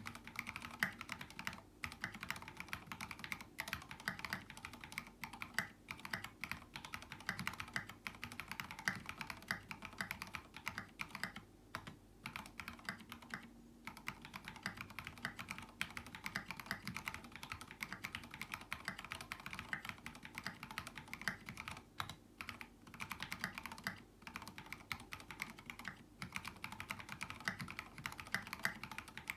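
Continuous fast typing on a mechanical keyboard with lubed linear Cherry MX Black switches on light 55 g springs, a brass plate and tall SA-profile keycaps. The key strokes come in quick, uneven runs with brief pauses.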